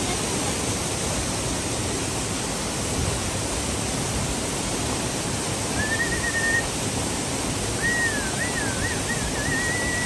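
Steady rush of water pouring over rocks in a mountain stream and waterfall. A thin, high, wavering tone sounds briefly past the middle, then again for about two seconds near the end.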